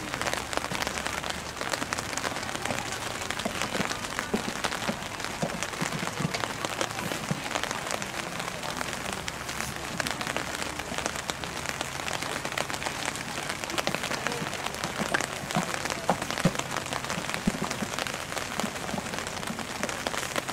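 Steady rain pattering on an umbrella close to the microphone, a dense spread of small drop ticks.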